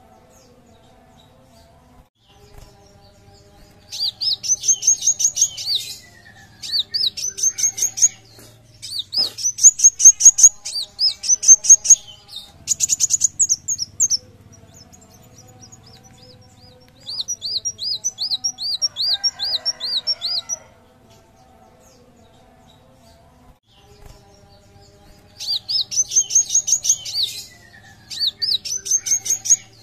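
Male kolibri wulung sunbird singing: phrases of fast, high, repeated chirping notes, each a few seconds long, with short pauses between them.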